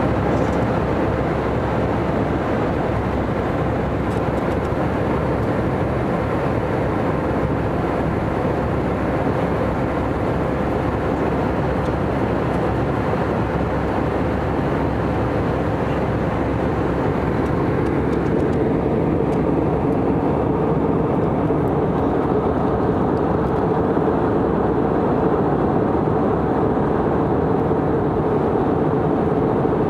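Steady cabin noise of a jet airliner in flight: a loud, even rush of engine and airflow noise with a steady hum running through it. It turns slightly duller about two-thirds of the way through.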